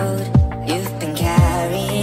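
Nightcore (sped-up, pitched-up) electronic pop music in an instrumental passage: held synth notes over a steady low bass, with a deep beat landing twice about a second apart.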